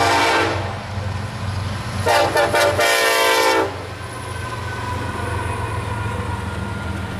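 Diesel freight locomotive horn sounding a short blast, then a longer one about two seconds in, over the steady rumble and wheel clatter of a passing double-stack container train.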